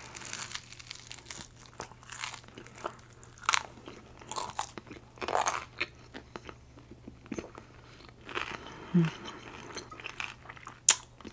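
A person biting into and chewing bread, with irregular crunches and mouth clicks every second or so.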